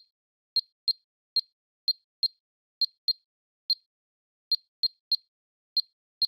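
Videofied WMB621 alarm keypad giving a short high-pitched beep at each key press while text is typed in: about fourteen identical beeps at an uneven pace, roughly two or three a second.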